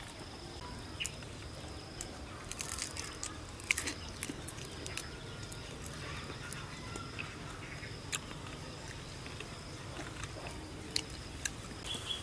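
Crisp shells of deep-fried giant water bugs cracking and crunching as they are pulled apart and chewed, in scattered sharp clicks and crackles, busiest a few seconds in. A faint steady high-pitched hum, like an insect drone, runs underneath.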